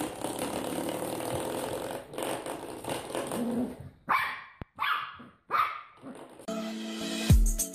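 A puppy growling, then giving three short barks about four to five and a half seconds in. Music begins near the end.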